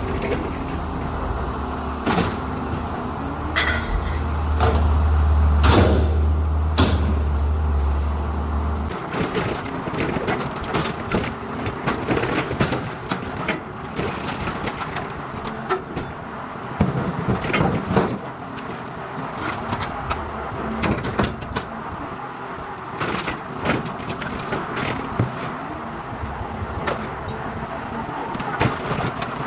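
Scrap metal being handled and unloaded, with scattered clanks and knocks, over a low steady engine hum that stops about nine seconds in.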